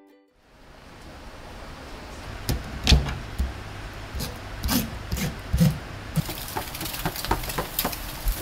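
Eel being filleted with a knife on a wooden cutting board: scattered knocks and taps of the knife and hands on the board over a steady background hiss. From about six seconds in, a brighter hiss with small crackles: skewered eel fillets grilling over charcoal.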